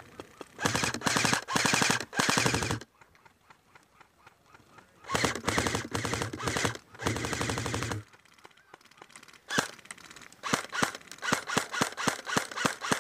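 Airsoft electric guns firing: several full-auto bursts in the first eight seconds, then a string of rapid single shots, about three a second, near the end.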